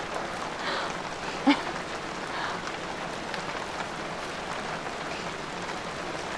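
Steady rain falling, a soft even hiss, with a short vocal sound such as a chuckle about a second and a half in.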